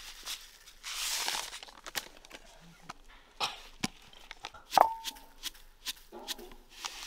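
Utensils and dishes clinking and knocking while a fish-sauce dressing is mixed. There is a short rustling hiss about a second in, then a string of sharp clicks. Near the middle comes one louder clink that rings briefly, like a spoon striking a bowl.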